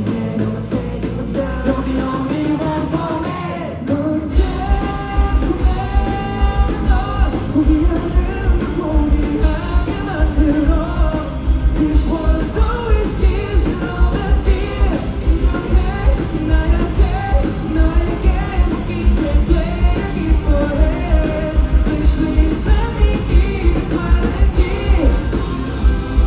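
Live rock band playing with a lead singer over guitars and drum kit. About four seconds in, after a brief lull, the kick drum comes in with a fast, steady run of beats under the singing.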